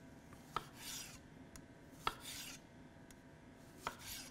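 Chef's knife slicing a dill pickle on a wooden cutting board: three strokes about a second and a half apart, each a sharp tap of the blade on the board followed by a short rasp.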